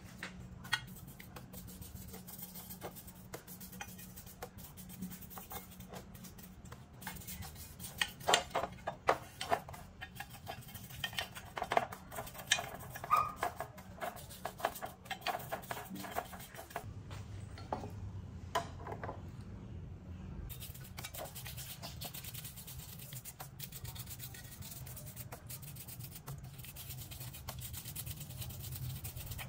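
Hand work on metal parts and tools: scattered clinks and taps, thickest in the middle, with rubbing and scraping, over a steady low hum.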